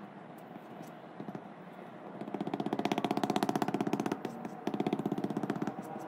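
Screen-printing squeegee dragged across the silkscreen mesh, making a fast rasping chatter that starts about two seconds in and breaks off briefly in the middle before carrying on.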